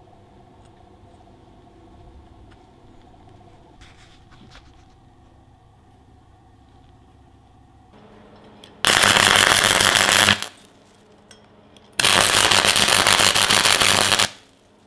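Flux-core MIG welding arc from a Parkside PFDS 120 A2 gasless welder, struck twice: two loud bursts of crackling sputter, each about one and a half to two seconds, stopping sharply, preceded by a low hum from the machine.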